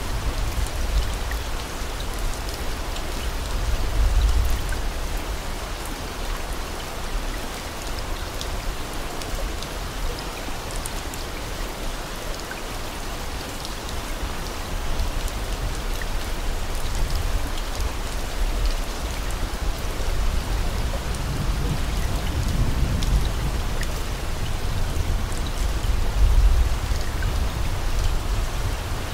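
Steady rain, an even hiss of drops, with deep low rumbles swelling about four seconds in and again through the second half.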